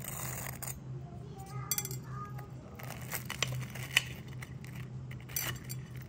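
A fork cutting through the crisp fried breadcrumb crust of krokiety (Polish croquettes) on a ceramic plate. There is a run of crackling crunches about three to four seconds in, with a sharp clink near the end of it, over a low steady hum.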